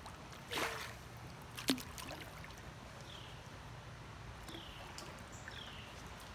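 Kayak paddle dipping and splashing in a calm creek, with a sharp knock a little under two seconds in, over faint running water.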